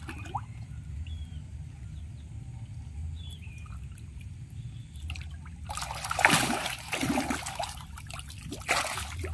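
Catfish thrashing and splashing at the surface of a shallow muddy pond as they feed. After a few quieter seconds come heavy splashes, loudest about six seconds in and again near the end.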